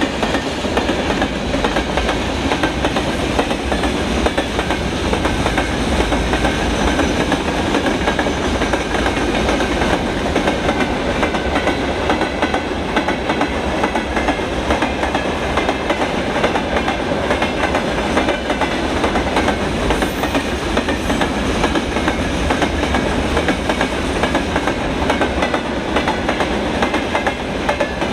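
Freight train rolling by, a steady loud rumble and clatter of wheels on the rails.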